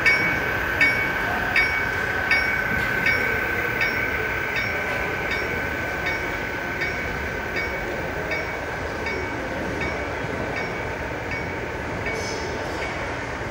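Large-scale model Union Pacific diesel locomotive and its double-stack container cars running past on the track, with a steady high whine and a bright ding repeating about every three-quarters of a second that fades as the locomotive moves away.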